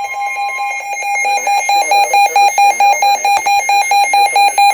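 Weather alert radio sounding its alarm tone: a steady, high-pitched electronic beep that turns into fast, evenly pulsed beeping about a second in. It is the alert that comes ahead of a severe thunderstorm warning being read out.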